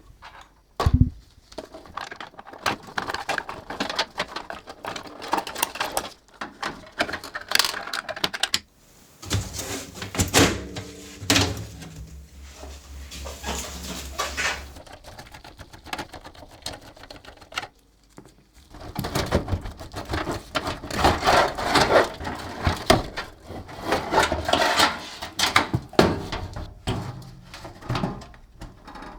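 Irregular clicking and clattering of small hard parts being handled while a desktop PC is taken apart, with a low steady hum for several seconds around the middle.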